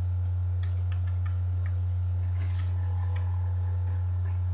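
A steady low hum, with a scatter of faint small clicks in the first couple of seconds and a brief faint rustle about two and a half seconds in.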